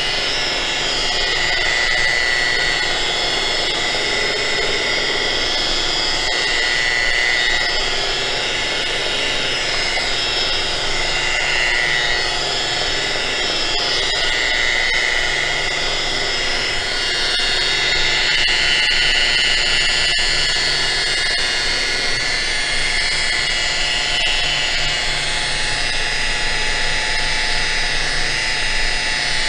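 Variable-speed electric rotary buffer with a foam pad, set at about 1200 and locked on, running steadily while buffing polish into an aluminum pontoon. A continuous high whine that wavers slightly in pitch.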